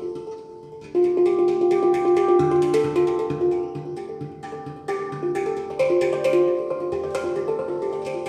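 Handpan played by hand: overlapping struck notes ring and sustain over one another, with a brief softer pause before the playing picks up again about a second in.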